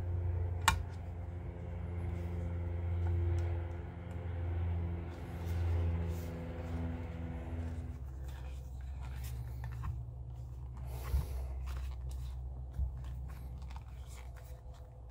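A low, steady, engine-like hum that swells a few times and stops about eight seconds in. Over it come sharp clicks and light scraping as a plastic-backed mirror glass is handled on a workbench, the loudest click about a second in.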